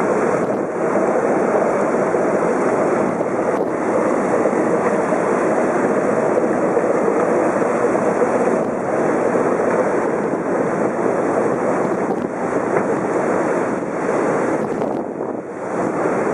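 Steady rush of churning water in a motor ferry's wake, with wind buffeting the microphone.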